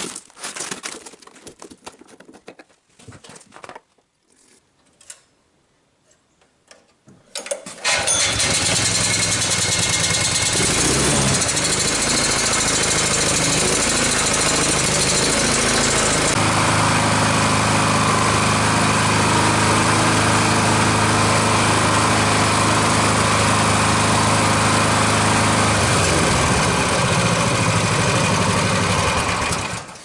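Rustling and light knocks of snow being brushed off metal, then the tree baler's small gas engine starts about a quarter of the way in and runs steadily, its note changing about halfway through, before it is shut off and cuts out at the end. It is a test run after an ignition-coil replacement for a spark plug that kept fouling.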